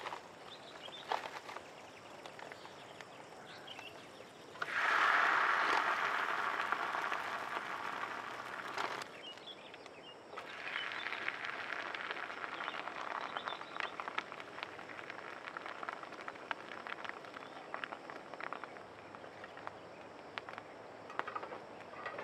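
Prata flatbread sizzling in a hot grill pan on a portable gas stove: the sizzle starts loudly about four and a half seconds in and slowly fades, breaks off, then resumes from about ten seconds in, with many light clicks of metal tongs against the pan.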